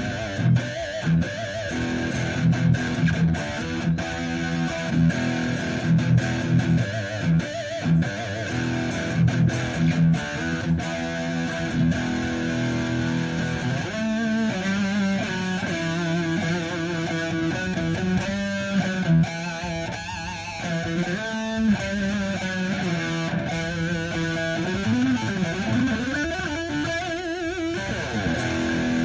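ESP LTD EC-1000 electric guitar with dual EMG pickups, played through an amplifier: chugging riffs with sharp picked accents for the first twelve seconds or so, then lead lines with bends and wide vibrato.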